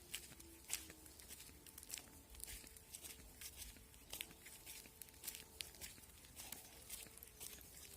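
Faint, irregular rustling and crackling: many small clicks a fraction of a second apart.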